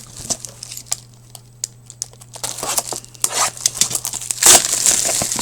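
A trading card pack wrapper being torn open and crinkled by hand: a few light crackles, then dense crinkling in the second half.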